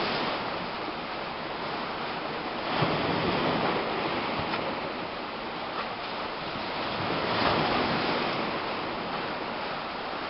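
Baltic Sea surf washing onto the beach: a steady rush of breaking waves that swells about three seconds in and again about seven seconds in.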